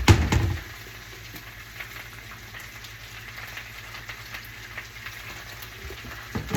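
Home fries (cut potatoes with onions and peppers) frying in a pan with a faint sizzle over a steady low hum. A sharp knock at the very start, and a couple of knocks near the end.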